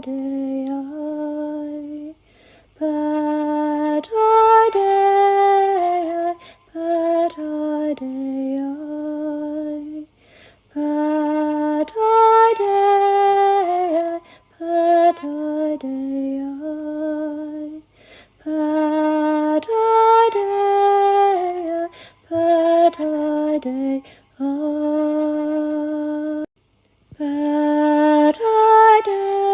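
A woman's solo voice singing a slow, unaccompanied chant-like melody in short phrases with brief pauses between them. A similar phrase comes back about every eight seconds.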